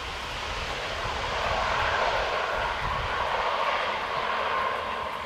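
ATR 42-500 turboprop airliner's two engines and propellers running as it rolls down the runway after landing, with a steady whine through the noise. The sound swells about a second and a half in and eases off near the end.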